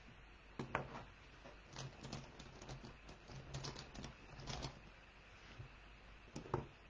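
Faint, scattered light taps and clicks of small objects being handled on a table, clustered in the first few seconds, with one sharper click near the end.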